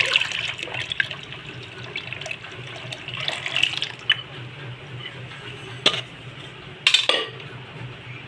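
Thin, watery toor dal being poured into a pot of tamarind water and vegetables, splashing in spells, with two sharp knocks of a vessel about six and seven seconds in.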